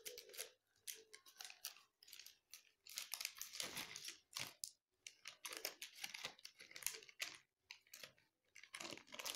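Crinkly plastic packet rustling in irregular bursts as a bundle of sketch pens is handled and slid into it.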